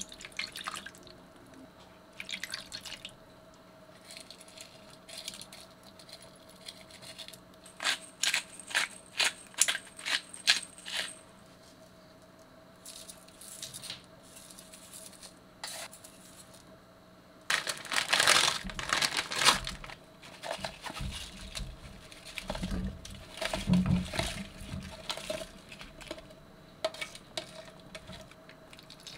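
Cooking ingredients going into a frying pan: a run of sharp taps and clicks as seasonings are added to the chicken, a spell of denser rattling and scraping, then heavier thuds as chunks of potato, onion and green onion are tipped in.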